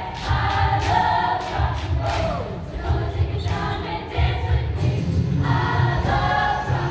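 Show choir singing over accompaniment with a steady beat, with a falling slide about two seconds in.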